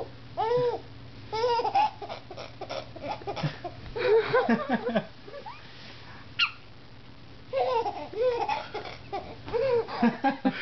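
Baby giggling in short bursts of high, bubbly laughter, in clusters near the start, about four seconds in and again through the last three seconds, with a short lull between.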